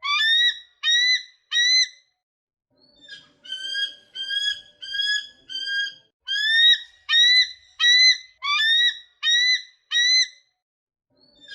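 A bird calling a series of short, high, slightly rising notes, about two a second: three notes, a pause, then a long run of a dozen or so, then another pause before it starts again near the end.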